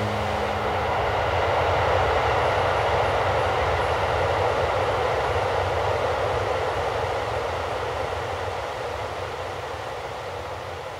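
Rushing, rumbling noise from the dance piece's soundtrack, with no melody, like a sound effect within the score. It swells over the first two seconds and fades slowly over the last few.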